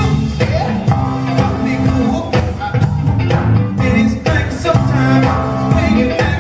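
Live funk band playing an uptempo groove on keyboards, electric guitar, bass and drums.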